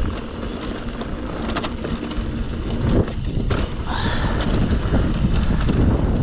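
Wind buffeting the microphone over the rumble and rattle of a mountain bike rolling down a rough dirt trail, with scattered knocks from the bike over bumps. A brief squeal comes about four seconds in.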